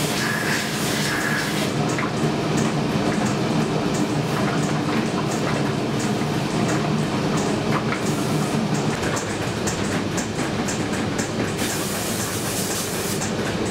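Steady factory machinery hum with a light ticking about twice a second.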